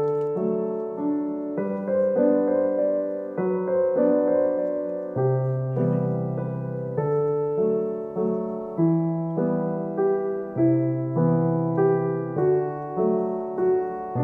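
Background piano music: a gentle keyboard tune with evenly paced notes and chords.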